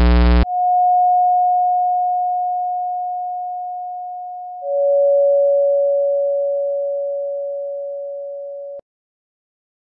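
A harsh electronic buzz cuts off about half a second in. A pure electronic tone then sounds and fades slowly, a lower tone joins it about four and a half seconds in, and both fade together until they cut off sharply near nine seconds.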